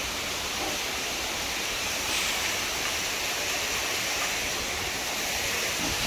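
Steady rush of water from a waterfall, a little louder from about two seconds in.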